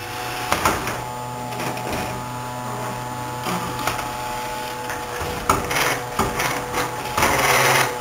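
Robot vacuum cleaner running on a hard wood floor: a steady motor and brush whir, with several short knocks and a louder clattering stretch near the end.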